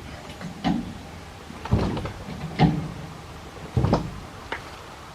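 Car jack being pumped to raise the front of a heavy car: a series of separate mechanical clunks, roughly one a second.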